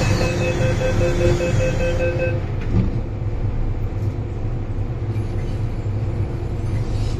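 Metro-train door-closing warning: a rapid run of evenly spaced beeps for about two and a half seconds, then a single thud as the doors shut. Under it all the car's steady low hum.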